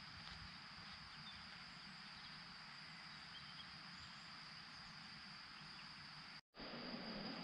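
Faint, steady high-pitched trilling of crickets. The sound cuts out for a moment about six and a half seconds in, then comes back a little louder.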